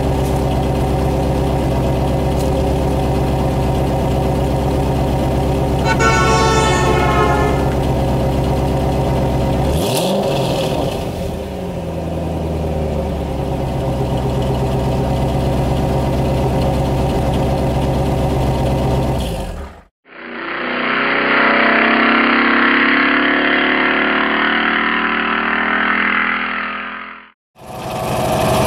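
Car engine idling steadily, with a brief rising tone about six seconds in. The sound cuts out about twenty seconds in and is followed by a different, muffled steady sound, then cuts again near the end.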